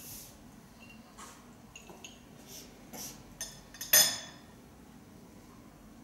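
Light clicks and knocks of things handled on a table, with one sharp clink about four seconds in that rings briefly.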